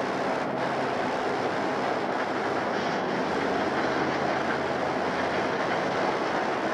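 Amtrak passenger train led by two F40PH diesel locomotives approaching: a steady rumble of the diesel engines and of wheels on the rails.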